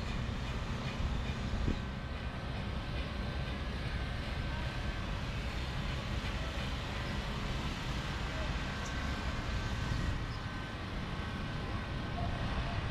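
Steady outdoor urban background noise with a low rumble, like traffic, and faint voices.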